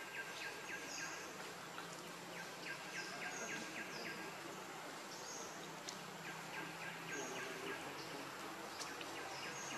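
Forest ambience: a steady insect hiss under repeated bird calls. Short high curved notes come about every second or two, and trains of quick ticking notes, about five a second, recur every few seconds.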